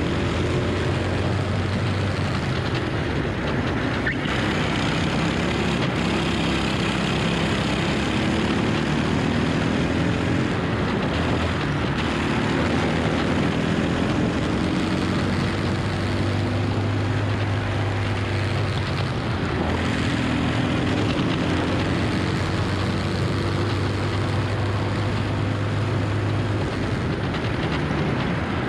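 Endurance kart engine on a flying lap, revving up and down in long sweeps as it accelerates out of corners and lifts off for the next ones. A steady rush of noise runs underneath, as heard from a camera mounted on the kart.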